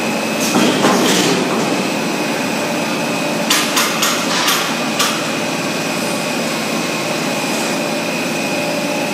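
High-speed stretch film production line running: a steady machine drone with a high whine. Sharp knocks break through about a second in, then five more in quick succession around the middle.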